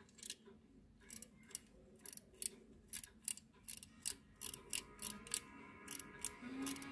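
Antique silver pocket watch's winding mechanism clicking as the crown is turned: sharp clicks at uneven spacing, a few a second. Music comes in near the end.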